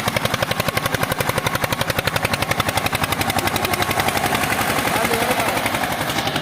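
Tractor diesel engine running with a fast, even exhaust beat at a steady pace.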